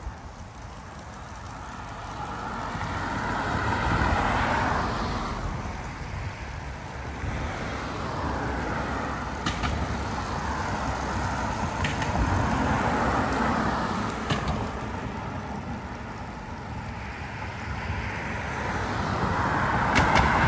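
Lego City passenger train (60197) rolling along plastic Lego track: a steady clatter of many plastic wheels that swells each time the train runs close, about four seconds in, around twelve seconds, and near the end, with a few sharp clicks along the way.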